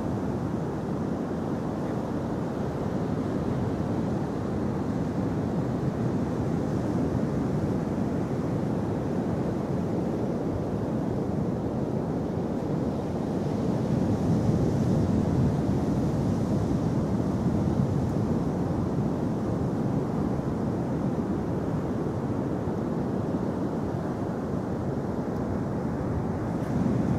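Steady low rushing of wind on the microphone mixed with ocean surf breaking on the beach, swelling slightly about midway.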